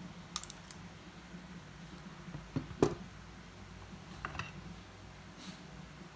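Light clicks and knocks of metal V-brake arms being handled and set on a plastic kitchen scale, with the loudest knock about three seconds in.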